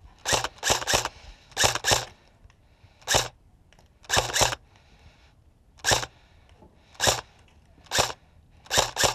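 Airsoft rifle firing about a dozen sharp shots, singly and in quick pairs, at uneven gaps of up to about a second and a half.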